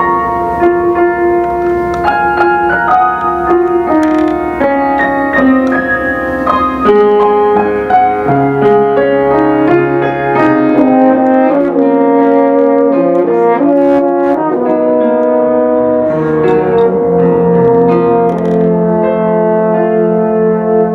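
Live instrumental trio: upright piano accompanying a French horn and a low brass horn, playing a melody in held notes.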